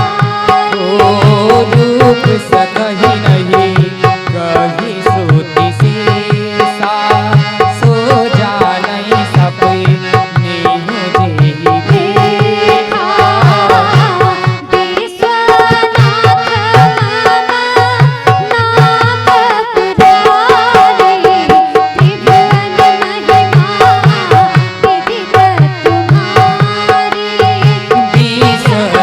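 Instrumental interlude of Indian devotional music between sung verses: hand drums keep a fast, steady rhythm under a melody instrument playing the tune.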